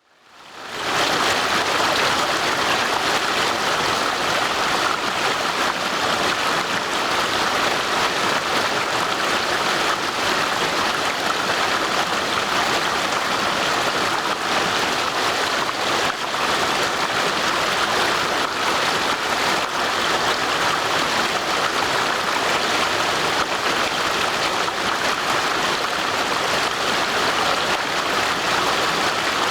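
Stream water rushing over stones in a steady, even rush that fades in over the first second.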